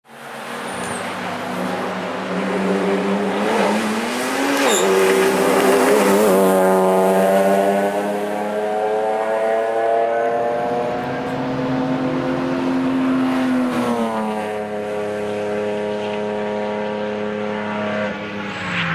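Car engine running at high revs on a race track. Its pitch climbs about four to six seconds in, holds steady, and falls about fourteen seconds in.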